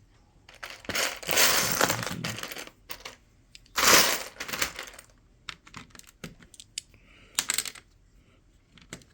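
Loose plastic Lego bricks clicking and rattling as they are handled. There is a longer rattle about a second in, and a short, loud one about four seconds in.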